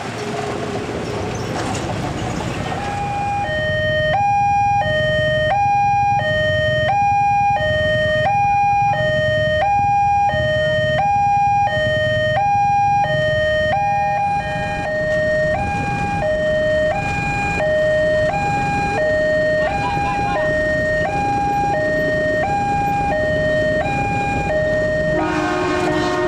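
Level-crossing warning alarm sounding its electronic two-tone hi-lo signal, switching pitch about twice a second, which starts about three seconds in, over steady road-traffic noise: the crossing is warning of an approaching train.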